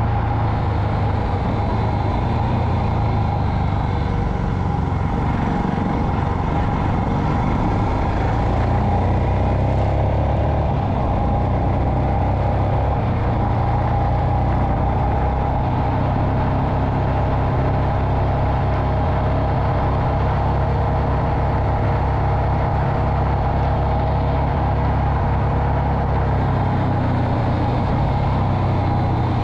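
Royal Enfield Himalayan's single-cylinder engine running steadily while the motorcycle rides at a slow, even pace, with no revving up or down.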